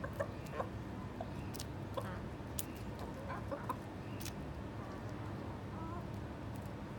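Backyard chickens, a hen and a rooster, giving short low clucks, several in a cluster about three seconds in. A few sharp ticks and a steady low hum run beneath.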